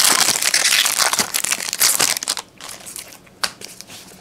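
Foil trading-card pack wrapper crinkling loudly as the pack is opened, for about two and a half seconds. After that come softer clicks and rustles of the cards being handled.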